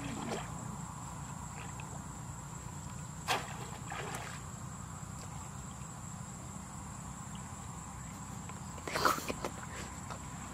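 Insects singing steadily in a high, even tone over a flooded rice paddy, with a few short splashes of water as people wade and work bamboo fish traps in the shallows. The splashes come about three seconds in and, loudest, near the end.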